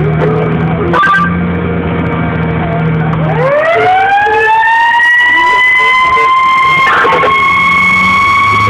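Fire engine running, then its siren winds up about three seconds in, rising in pitch and levelling off into a steady high tone. Two short, sharp sounds come about one second and seven seconds in.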